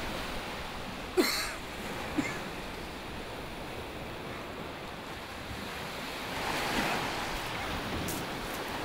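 Sea waves washing onto a shingle beach in a steady rush of surf and wind, with one wave surging up louder about two-thirds of the way through. A short, sharp sound stands out about a second in.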